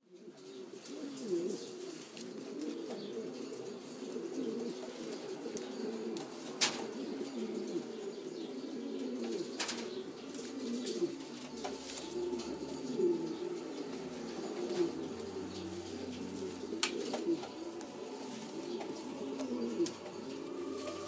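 Several Laudino Sevillano pigeons cooing continuously, their low calls overlapping. A few sharp clicks stand out now and then.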